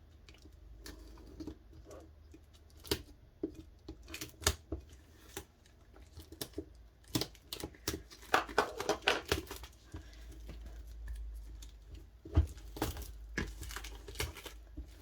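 Packaging of a DVD box set being unwrapped by hand: plastic wrapping crinkles and tears in short rustles, with scattered clicks and taps as the case is handled. The longest stretch of crinkling comes about halfway through.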